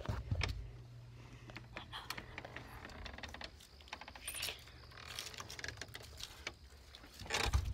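Handling noise from a phone held close in the hand: scattered clicks, taps and rustles over a low steady hum, with a louder rustle near the end.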